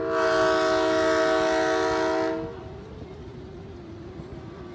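Diesel locomotive's air horn blowing one long blast of about two and a half seconds, several notes sounding together as a chord: the warning for a road grade crossing. After the horn stops, the locomotive's diesel engine keeps up a steady low hum as it rolls across.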